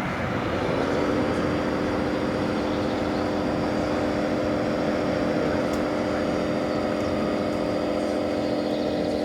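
A radio-controlled model construction machine's motor running steadily, a humming whine that starts about half a second in and holds an even pitch.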